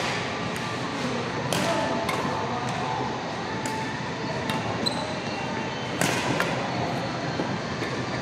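Badminton rackets striking a shuttlecock during a rally: a string of sharp hits, irregularly spaced from half a second to a second and a half apart, some louder than others, over a steady background hum.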